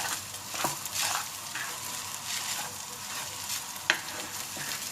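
Fried rice sizzling in a hot pan while a spatula stirs and scrapes through it, with one sharp knock of the utensil against the pan about four seconds in.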